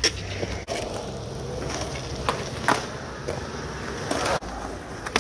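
Skateboard wheels rolling on smooth concrete, a steady rumble, with a few sharp clacks of boards hitting the concrete.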